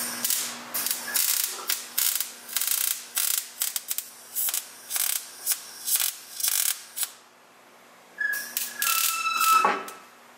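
Arc welder tacking the Skunk2 exhaust pipe: the arc crackles in short bursts, about two a second, for the first seven seconds. Near the end a brief high tone sounds and slides down in pitch, the loudest moment.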